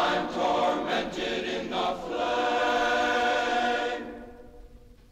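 Choir singing, ending on a long held chord that fades out about four and a half seconds in.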